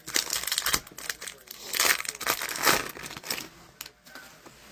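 Crinkly crumpling and tearing of a plastic hockey card pack wrapper as it is ripped open and scrunched, in dense crackles for about three and a half seconds, then dying away.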